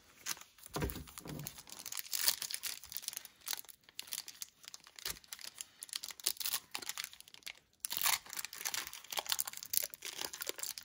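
Crinkling and tearing of a 1990 NFL Pro Set trading-card pack wrapper as fingers pick at its tightly sealed end, which will not rip cleanly along the seam. Irregular crackling, with a brief pause about three-quarters of the way through.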